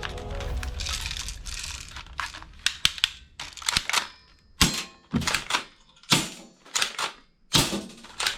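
Plastic toy gun being worked: an irregular run of sharp clicks and clacks, some with a short ringing tail, and a brief hiss about a second in.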